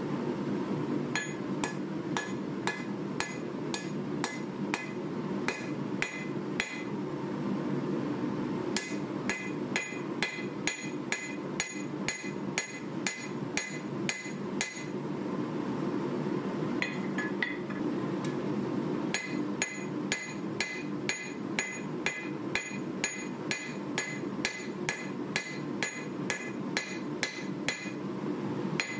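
Forging hammer striking a 1095 steel knife blade on an anvil, about two blows a second, each with a bright ring, in three bouts with short pauses between them. A steady low hum runs underneath.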